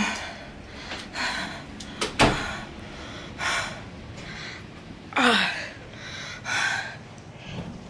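A person's heavy, uneven breathing: a series of short gasping breaths about a second apart, with a sharp knock about two seconds in and a short falling vocal groan about five seconds in.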